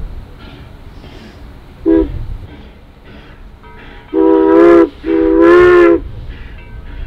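Steam locomotive whistle on a 1917 Baldwin 4-6-0 blowing a short toot, then two longer blasts, a steady chord of several tones, over the quieter chuffing exhaust of the approaching engine.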